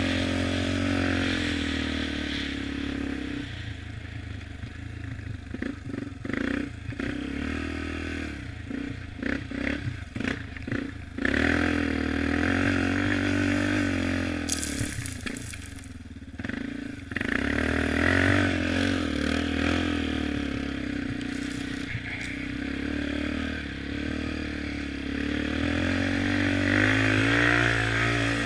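A 2006 Yamaha Raptor 350 quad's single-cylinder four-stroke engine running as it is ridden through snow, its pitch rising and falling with the throttle. For several seconds in the middle the engine note comes and goes in quick chops as the throttle is blipped on and off. A short hiss follows about halfway through, and the engine pulls harder again near the end.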